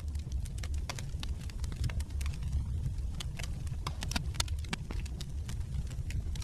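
Wood fire burning in a fireplace: logs crackling with many irregular sharp pops over a steady low rumble.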